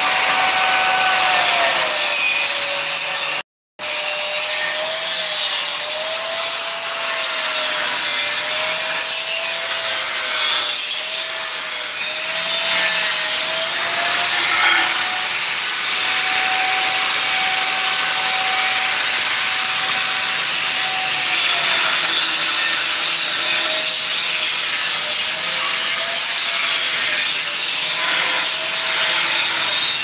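Handheld electric power tool, an angle grinder type, running and cutting continuously with a harsh abrasive rasp. Its motor hum drops and wavers when it bites under load and climbs back when it runs free. The sound cuts out once for a moment early on.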